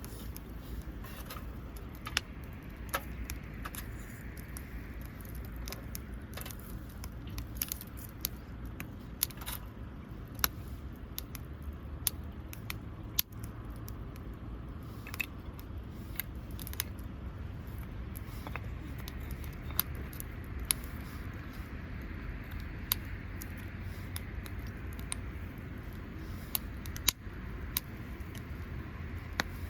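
Wood campfire crackling, with sharp irregular pops and snaps over a steady low rumble.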